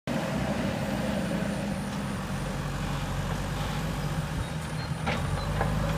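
Heavy diesel construction machinery engine running steadily, with a short click about five seconds in.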